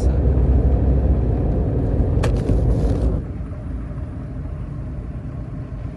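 Road and engine rumble of a moving car heard from inside the cabin. It drops noticeably about three seconds in, with a brief click about two seconds in.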